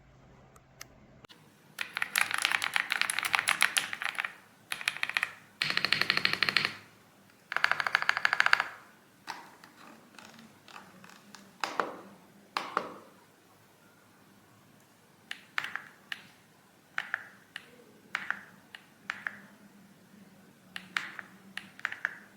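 RedThunder K95 mechanical keyboard with pre-lubed linear switches being typed on: several fast bursts of rapid keystrokes in the first half, then slower, separate key presses.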